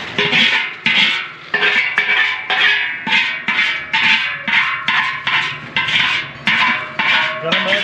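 Background music with a steady beat of about two strokes a second.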